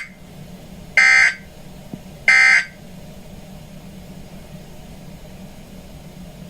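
Emergency Alert System SAME end-of-message data bursts from a weather radio broadcast. The tail of one burst falls right at the start, then two more short, buzzy digital tone bursts follow about a second apart, marking the end of the test alert. After them comes a steady low hum from the open broadcast channel.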